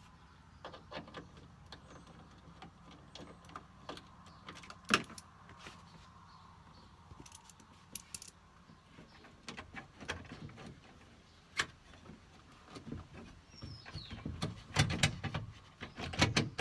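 Scattered metallic clicks and clinks of a hand tool working the Torx screws out of a minivan's sliding-door latch mechanism, coming quicker and louder over the last few seconds.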